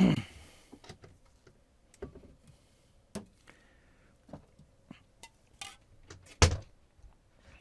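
Scattered clicks and knocks of hands handling a TV's backlight strips and panel parts, with a loud thump at the start and a sharper knock about six and a half seconds in.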